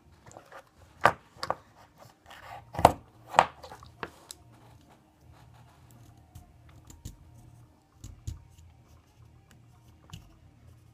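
Sharp plastic clicks and snaps from a disposable lighter being pried and cut apart by hand: four loud ones in the first three and a half seconds, then only faint small handling clicks.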